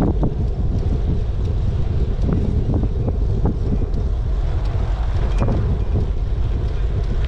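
Wind buffeting the microphone of a moving bicycle rider, a steady low rumble with a few light ticks scattered through it.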